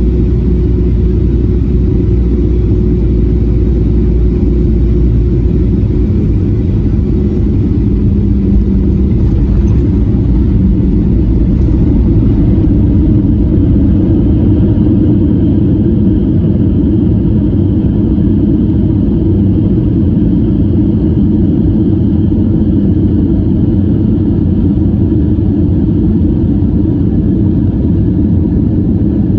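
Boeing 737-800 cabin noise: a steady, loud, low rumble of the CFM56 jet engines and airframe. The deepest part of the rumble eases somewhat about halfway through.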